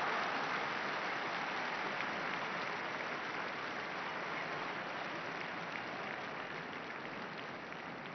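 Large crowd applauding in the open, a dense patter of many hands that slowly fades away.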